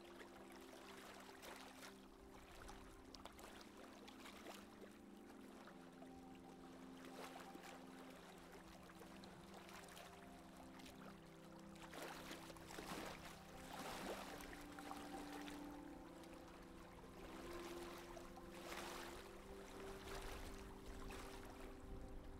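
Quiet rush and splash of water along a sailboat's hull as it runs downwind under the jib, swelling in surges about halfway through and again near the end.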